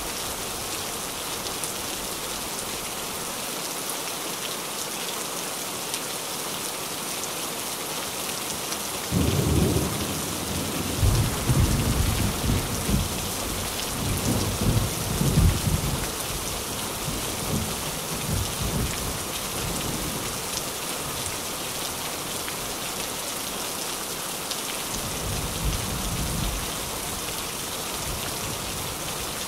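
Steady rain drumming on a tin roof. A rumble of thunder comes in about nine seconds in and rolls on for about ten seconds, and a second, shorter rumble follows later.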